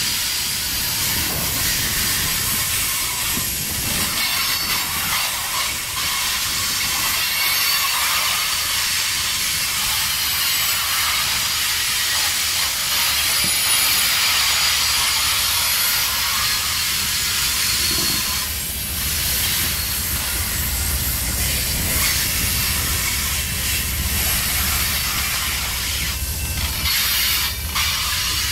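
Covered hopper cars of a long unit grain train rolling steadily past close by: a continuous hiss of steel wheels on the rails over a low rumble.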